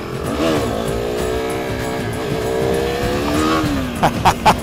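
KTM RC390's single-cylinder engine revved hard for a wheelie. The pitch climbs quickly, holds high for about two and a half seconds, then falls away as the throttle closes. A few short sharp sounds follow near the end.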